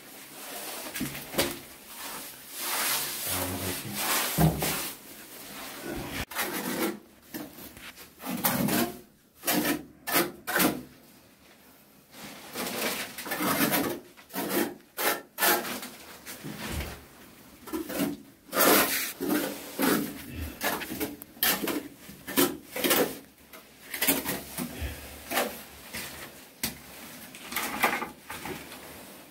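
Irregular scraping and rubbing strokes of a hand tool worked over a wet cement-based coating on bathroom walls and floor, coming in bursts with short pauses between them.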